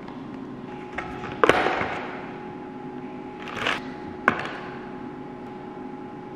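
A few sharp snaps and crackles of a plastic takeout container being opened and disposable wooden chopsticks being handled, over steady background music.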